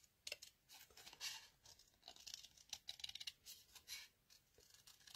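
Small craft scissors fussy cutting around a stamped image in white cardstock: a quiet run of short, irregular snips.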